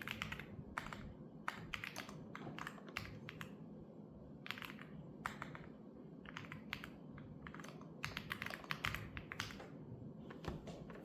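Typing on a computer keyboard: quick flurries of key clicks with short pauses between them.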